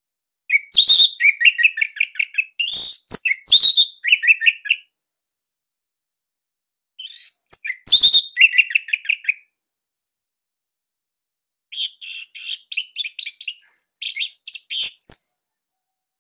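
Orange-headed thrush singing in three bursts separated by pauses of a couple of seconds, each a quick run of varied high notes and trills.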